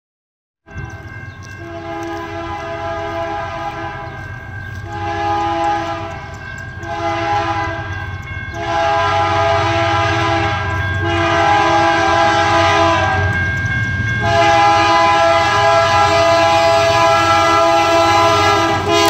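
Air horn of an approaching BNSF diesel freight locomotive sounding a series of about six long blasts separated by short breaks, the last one held, growing steadily louder as the train nears.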